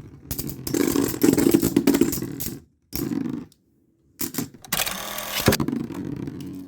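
Two metal-wheeled Beyblade spinning tops clattering and scraping against each other and the stadium, with sharp clicks of collisions; the sound cuts out abruptly to silence twice.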